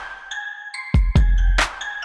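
Electronic outro music with a heavy bass drum beat and bright synth notes.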